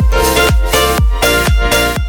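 Upbeat electronic dance music with a steady kick drum about twice a second under bright synth chords.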